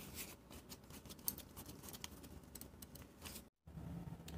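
Faint, irregular light clicks of a nut driver turning a threaded screw into an aluminium actuator housing, with one sharper tick partway through. The sound drops out briefly near the end and comes back as a low steady hum.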